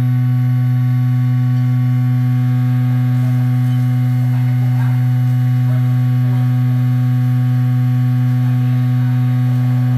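Steady, unchanging low hum of one pitch with its overtones, from a vibratory stress relief machine's vibration motor running at a constant set speed during a treatment cycle.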